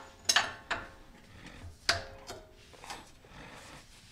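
Sharp metallic clicks and clinks of a large 35 mm socket being worked on the front axle nut of a Jeep Wrangler JK hub, with the sharpest knocks about a third of a second in and just before two seconds.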